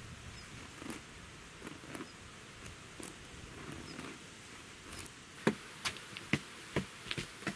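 Hands and sneakers tapping and scuffing on concrete as a person crawls on all fours: soft scuffs at first, then from about five and a half seconds in a run of sharper taps, roughly two a second.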